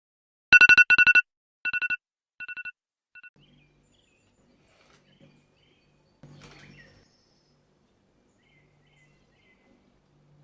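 Electronic alarm beeping in quick pulses on a two-tone pitch, in bursts that grow fainter and die away after about three seconds. A short rustle follows a little after six seconds.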